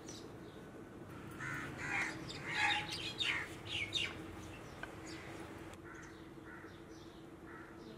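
Crows cawing, with smaller birds chirping among them; the calls are loudest a couple of seconds in, then come back fainter and spaced out near the end.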